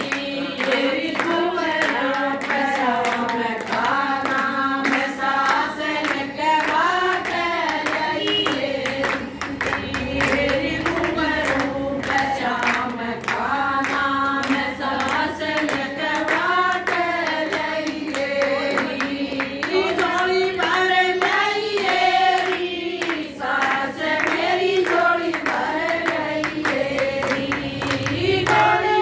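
A group of women singing a Hindu devotional bhajan together, keeping time with steady rhythmic hand-clapping.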